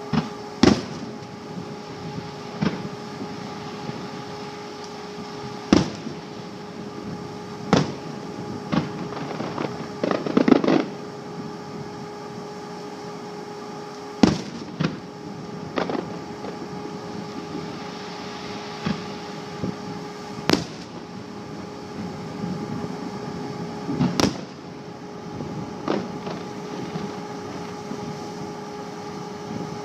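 Aerial firework shells bursting overhead: sharp booms at irregular gaps of one to four seconds, with a quick cluster about ten seconds in. A steady hum runs underneath.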